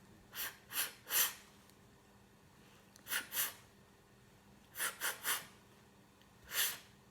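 A person's voice repeatedly making the unvoiced phonics sound "f": short hissy puffs of breath through the teeth, about nine in all, in groups of three, two, three and a single one near the end.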